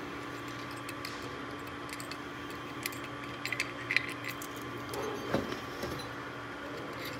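Light metallic clicks and clinks of 3/8 bolts being unscrewed by hand from a DC motor's mounting flange on a worm gearbox and handled, bunched in the middle, over a steady low hum.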